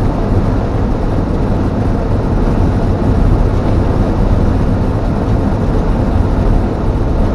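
1952 Ford F1 pickup driving at road speed while towing a loaded trailer, heard from inside the cab: a steady drone of engine, tyres and wind, heaviest in the low end.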